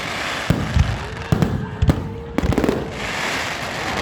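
Aerial fireworks going off in a quick series of sharp booms about every half second, with crackling, hissing bursts between them.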